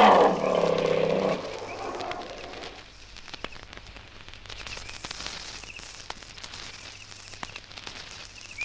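A loud animal call ends about a second and a half in. Then comes a quieter stretch of crackling surface noise and scattered clicks from an old vinyl record, with a few faint high chirps.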